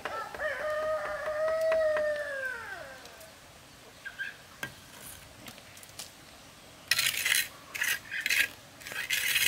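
A rooster crowing once, a long call that falls in pitch at the end. About seven seconds in come several short, harsh scraping strokes, like metal on a pot.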